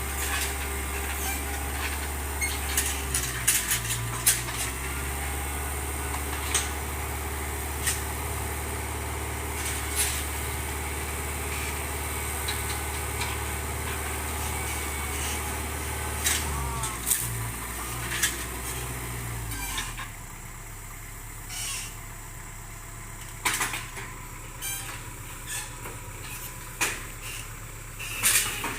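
Tractor engine running steadily, its speed shifting a few times and dropping to a lower, slower run about two-thirds of the way through, with scattered sharp clanks and knocks.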